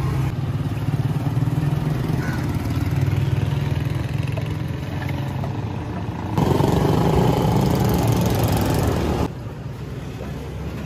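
Steady low hum of street traffic and motorcycle engines. About six seconds in, a louder rushing noise starts and lasts about three seconds, then drops away to a quieter background.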